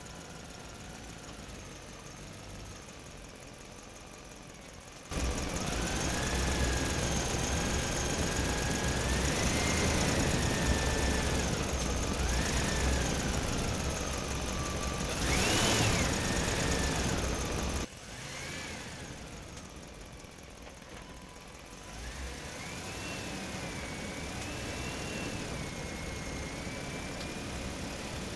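Electric motors of radio-controlled construction models whining, the pitch rising and falling as they are driven. The sound steps up sharply about five seconds in and drops abruptly about two-thirds of the way through.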